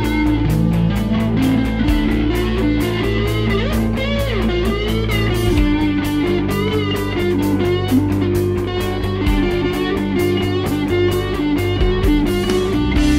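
Fender Telecaster electric guitar, processed through amp-modelling effects, playing a lead line with string bends and vibrato about four seconds in. It plays over a backing track with sustained bass notes and a steady beat.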